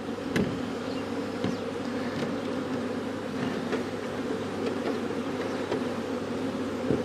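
Honeybees buzzing in a steady, dense drone, with a few light knocks: one near the start, one about a second and a half in and one near the end.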